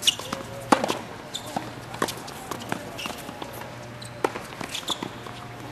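Tennis ball and racket on a hard court: a bounce, then a sharp pop of the racket striking the ball about three-quarters of a second in, followed by a few fainter knocks.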